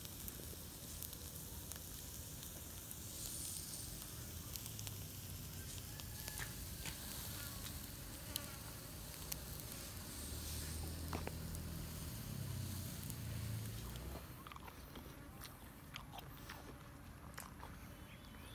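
A fly buzzing on and off, over scattered faint crackles from squid grilling on a wire rack over a charcoal fire.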